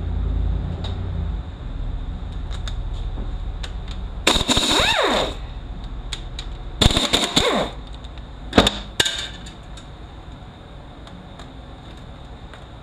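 Pneumatic impact wrench run in three short rattling bursts, its air motor's pitch rising and falling with each, as it spins out the 10 mm speed-sensor bolts on a Toyota U250E automatic transaxle.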